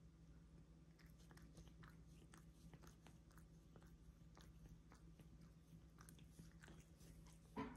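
Cat licking another cat's fur close up: faint, quick wet clicks and rasps of the tongue, several a second, over a low steady hum, with one brief louder sound near the end.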